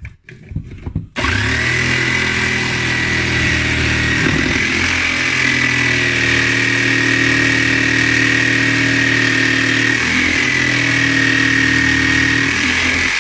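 Electric power tool cutting into the wood of a cricket bat. It starts about a second in and runs steadily, with a low motor hum and a steady high whine.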